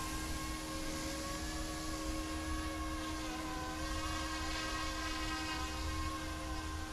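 Small electric RC helicopter, an F09-S UH-60 Blackhawk scale model, hovering: a steady motor whine and rotor whir whose pitch wanders slightly as it holds its hover.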